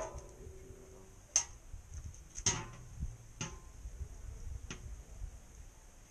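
A handful of short, sharp metal clicks and clinks spread over several seconds as cooking utensils knock against a barbecue grill and tray while a whole fish is being turned and tended. A faint steady high-pitched hum runs underneath.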